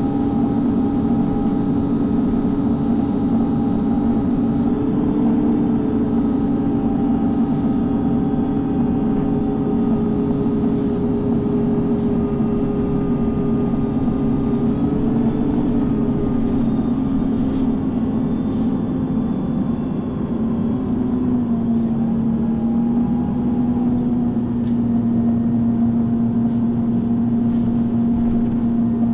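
MAN NG 323 articulated city bus's diesel engine and gearbox running steadily under way, its hum gliding gently in pitch and dropping to a lower note about two-thirds of the way through, with faint light rattles.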